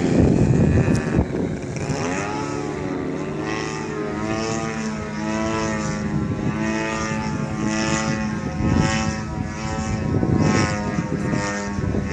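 Yak 54 aerobatic plane's propeller engine droning overhead, its pitch dipping and rising as it manoeuvres. A rushing noise is loudest in the first second or so.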